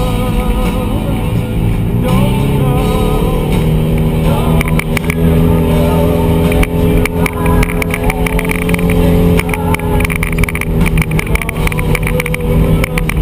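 Side-by-side UTV engine running at a steady speed while driving on a rough dirt road, with rattling and knocking from the bumpy ride, thickening after a few seconds.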